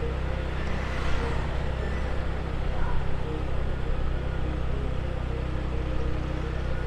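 Motorbike running steadily while being ridden, with a constant low road and engine rumble. A brief rush of noise comes about a second in.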